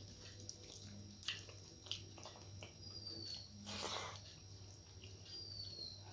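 Close-up eating by hand: rice and mashed potato being squished between the fingers, soft clicks and wet mouth sounds of chewing, and a short, louder slurp about four seconds in as a mouthful is taken off the fingers.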